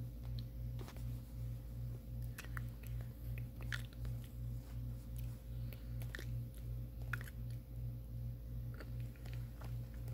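Low steady hum that pulses evenly, with soft scattered clicks and rustles.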